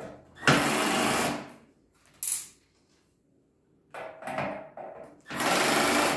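Cordless drill driving screws into the fire pit table's steel frame: two bursts of about a second each, one shortly after the start and one near the end. A brief whirr and some clattering of handling come in between.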